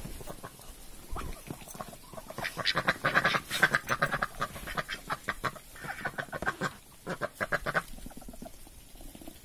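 A flock of Muscovy ducks calling in many quick short notes, building about two seconds in and thinning out near the end.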